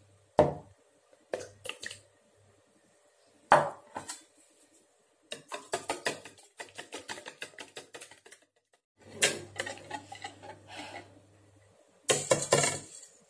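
Eggs being beaten by hand in a plastic mixing bowl. A couple of sharp knocks come first, then runs of rapid clicking and scraping of a utensil against the bowl.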